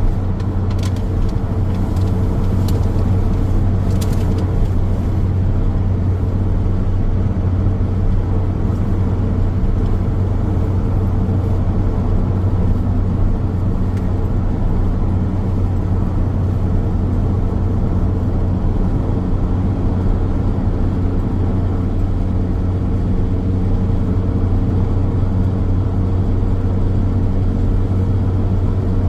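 Steady road noise of a car driving on a road: a constant low drone with a few faint clicks in the first few seconds.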